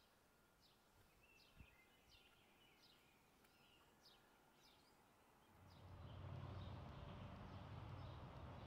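Faint outdoor ambience with birds chirping in the background, a few short downward-slurred notes. About two thirds of the way through, a steady low rumble of background noise comes in and stays.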